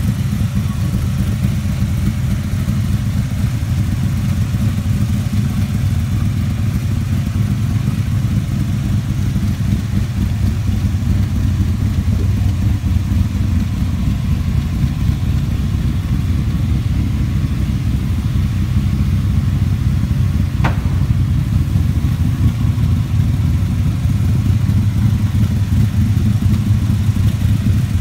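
Reproduction Shelby Cobra's engine idling steadily through its side exhaust pipes, a constant low rumble. A single sharp click sounds about 21 seconds in.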